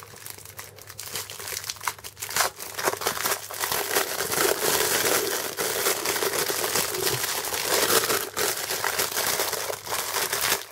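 Clear plastic packaging crinkling and crackling as hands pull it open, a dense run of sharp crackles that gets louder about two seconds in.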